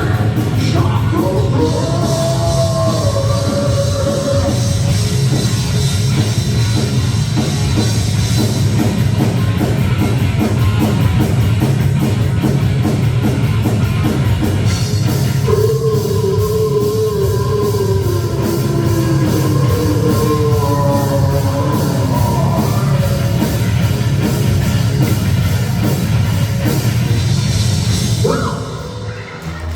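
Live rock band playing a loud, heavy rock song with a full drum kit, a wavering lead melody line over it; the song comes to a close near the end.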